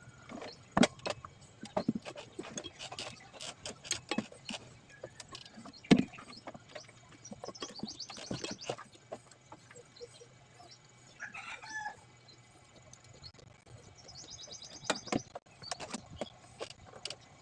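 Scattered light clicks and knocks of parts and hand tools being handled, with a chicken calling in the background a few times.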